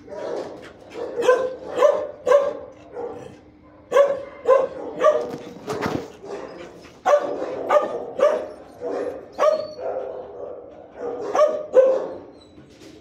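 Dog barking in animal-shelter kennels, in runs of two or three barks separated by short pauses.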